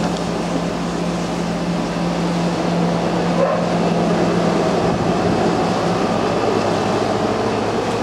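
Steady whirring hum of an air-conditioning unit, unchanging in level.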